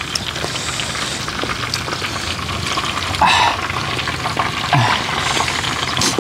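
Steady sizzling hiss of food frying on a stove, with scattered faint crackles. A couple of short vocal sounds come from the eaters, about three and five seconds in.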